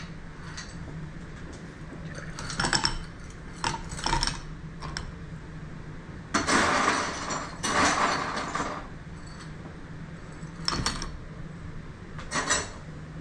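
Ice cubes being gathered and dropped into a glass of Bloody Mary mix: a series of clinks, rattles and knocks, with the longest clatter about halfway through.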